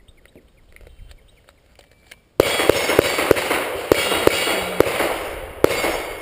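Pistol fired in a rapid string of about eight or nine shots at steel targets, starting suddenly a little over two seconds in.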